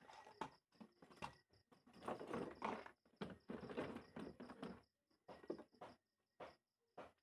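Irregular knocks, clatter and rustling from handling close to the microphone: dense for about five seconds, then a few separate knocks. A cricket chirps steadily underneath.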